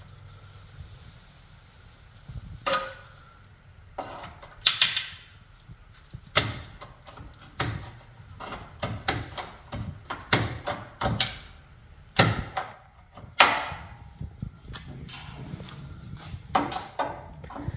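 Tools and metal car parts being handled and set down: a string of irregular knocks and clanks, some sharp and briefly ringing.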